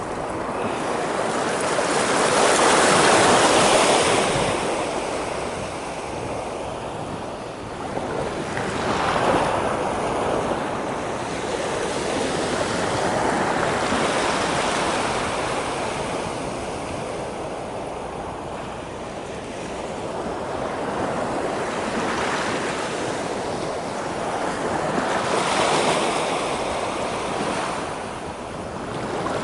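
Waves breaking and surging, the noise swelling and falling away every several seconds, with wind.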